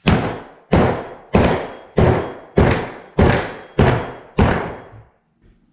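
Eight steady hammer blows on a steel bearing punch, about one and a half a second, each a sharp knock that rings briefly, driving a worn 44 mm wheel bearing out of a Polaris RZR steering knuckle.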